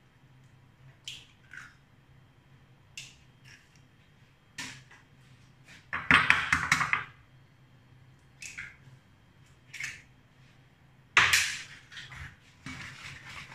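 Eggs being cracked by hand into a bowl of flour: scattered sharp taps and clicks of eggshell, with two louder clattering bursts about six seconds in and about eleven seconds in.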